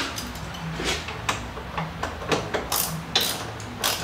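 Scattered light clicks and knocks of hand tools and metal hardware being handled at the motorcycle's rear shock mount. The shock is being bolted in after it has seated.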